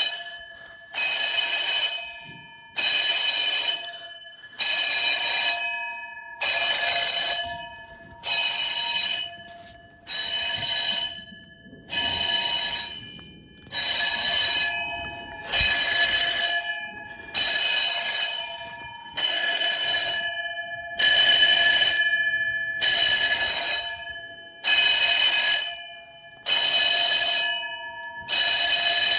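Many electric fire alarm bells ringing together off a fire alarm panel, pulsing in about one-second bursts roughly every two seconds. Each burst starts sharply and rings down before the next. Very loud.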